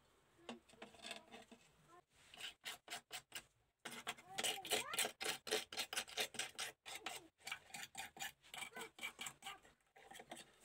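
Small wire brush scrubbing softened paint off a diecast metal model car body in quick back-and-forth strokes, several a second. The scrubbing starts about two seconds in and gets louder from about four seconds in.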